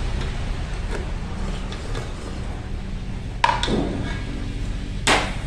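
Serving spoon and bowl knocking against a rice pot and china bowl: faint clicks, then two sharp clinks, one a little over three seconds in and a louder one near the end, over a steady low hum.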